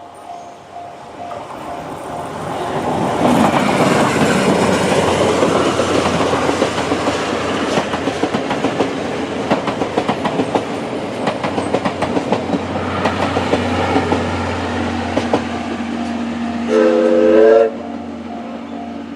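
D51 steam locomotive and 12-series coaches passing over a level crossing: a rising rumble with rapid clicking of wheels over rail joints. Near the end the locomotive gives a steam-whistle blast about a second long that cuts off sharply. The crossing's JR-standard electronic warning bell pulses steadily at the start, is drowned out by the train, and is heard again after the whistle.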